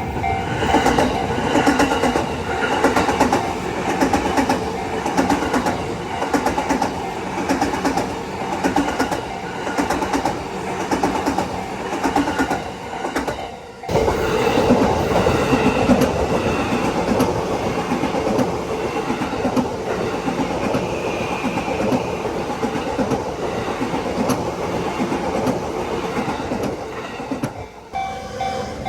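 Yamanote Line train's wheels clacking over rail joints in a steady repeating rhythm, over the train's running noise, with a sudden break about halfway through.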